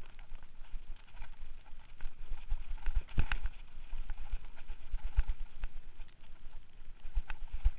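Mountain bike rattling and knocking as it rolls over a rough dirt trail: irregular clacks and jolts of the bike and camera mount with each bump, with a harder knock about three seconds in, over a low rumble of tyres on dirt.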